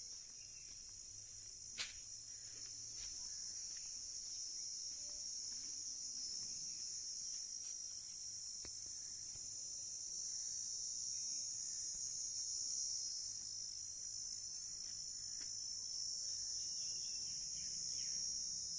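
Crickets chirring in a steady, dense high-pitched chorus, with a single sharp click about two seconds in.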